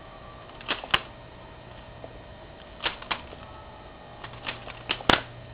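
Balisong (butterfly knife) being flipped: its metal handles and blade clack together in sharp clicks. The clicks come in pairs about a quarter second apart, then a quicker run of four near the end, the last one the loudest.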